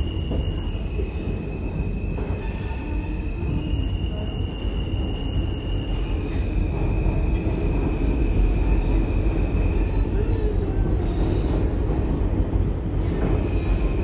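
R160A-Alstom subway car running between stations, heard from inside the car: a steady low rumble of wheels and running gear on the track, with a thin high tone that holds for a few seconds at a time and shifts in pitch several times. The rumble swells a little in the middle.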